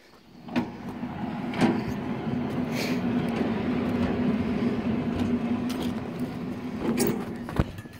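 Norwood LM2000 manual bandsaw mill head being pushed along its steel track: a steady rolling rumble with a hum and a few knocks, ending with a clunk as the carriage stops near the end.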